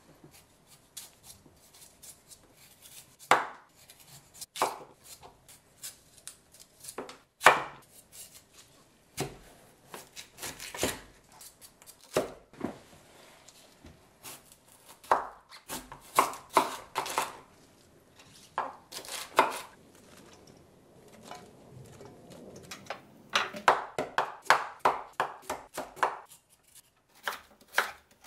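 Chef's knife cutting through raw kohlrabi onto a wooden cutting board: separate sharp chops at uneven intervals, then a quicker run of cuts a few seconds before the end.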